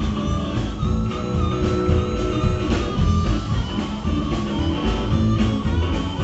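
Blues band playing, guitar to the fore over bass and a steady beat.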